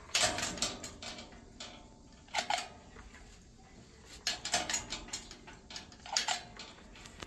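Mechanical push-button gate lock being handled, with quick metal clicks and rattles in four short bursts.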